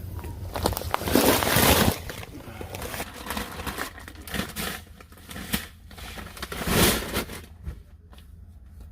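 Rustling and crinkling handling noises, with two longer, louder scuffs about a second in and near seven seconds.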